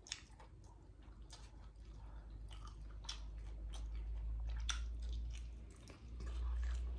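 Close-miked chewing and biting of crispy flour-dredged fried chicken wings: scattered crunches and wet mouth clicks over a low rumble.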